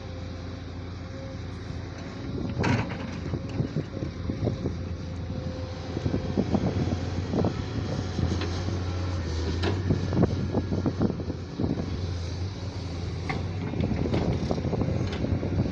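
JCB digger's diesel engine running steadily, with frequent irregular clanks and knocks from the bucket and arm at work digging, starting about two and a half seconds in.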